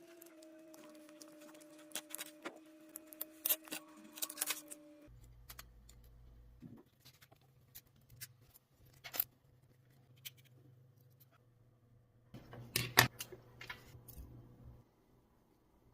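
Irregular sharp clicks, taps and scrapes of small hard parts and tools being handled, in bunches about three to five seconds in and again near the end. A steady whine runs under the first five seconds and stops suddenly, leaving a low hum.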